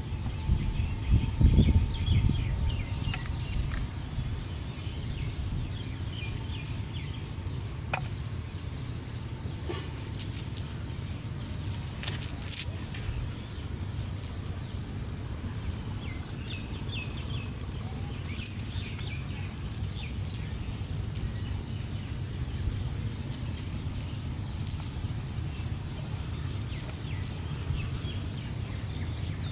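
Outdoor ambience: a steady low rumble, louder for a moment about a second in, with birds chirping now and then and a faint steady high hum over it.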